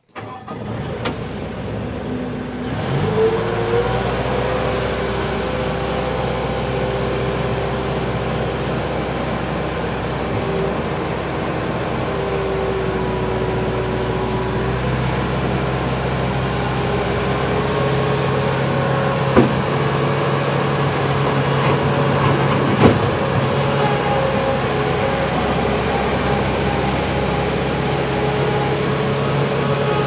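Bobcat 873 skid steer's Deutz four-cylinder oil-cooled turbo diesel cranking and catching about three seconds in, then running steadily while the machine is driven and the loader boom raised. Two sharp knocks come in the second half.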